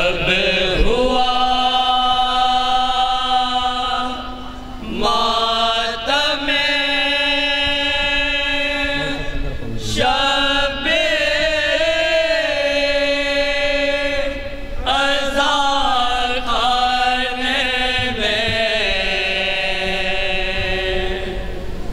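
A group of men chanting a nauha, a Shia lament, together in long held notes. The phrases last about five seconds each, with short breaths between them.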